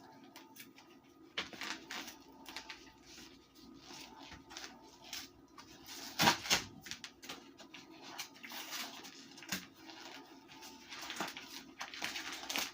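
Irregular rustling, clicks and taps of items being handled, with a louder burst about six seconds in and more activity near the end.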